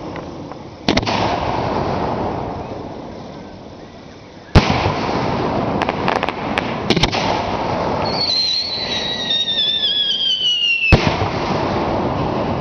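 Aerial firework shells bursting: a sharp bang about a second in, a louder one a few seconds later followed by scattered crackles, and a whistle falling in pitch for about three seconds that is cut off by another bang near the end. A rumble trails each bang.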